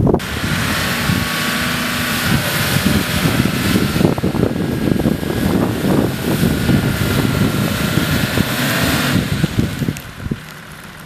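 Toyota Land Cruiser engine running under load as the SUV drives through deep mud, heard through heavy wind buffeting on the microphone. The wind noise drops away about nine seconds in, and the level falls soon after.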